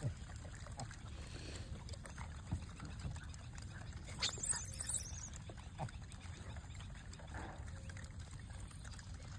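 Outdoor ambience with a low steady rumble and a few faint clicks. About four seconds in comes a brief, high, wavering squeal lasting about a second.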